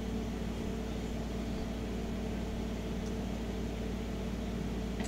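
Steady low hum with a faint hiss and no distinct events.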